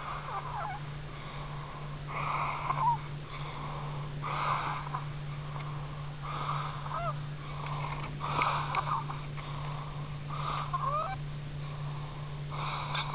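Wheezy, whistling snores from a sleeper, one about every two seconds, with squeaky rising and falling whistles in each breath. A steady low hum lies under them.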